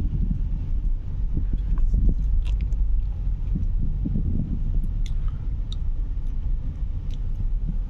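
Steady low rumble of a car driving at low speed, heard from inside the cabin: engine and tyre noise, with a few faint clicks.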